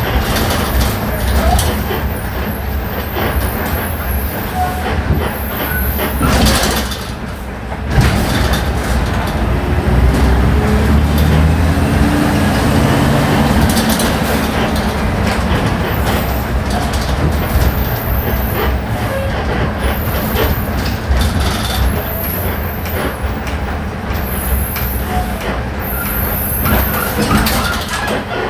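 Volksbus 17-230 OD city bus running on its natural-gas (CNG) engine, with a steady low rumble; after a brief lull the sound comes back suddenly, and the engine pitch rises as the bus accelerates about ten seconds in.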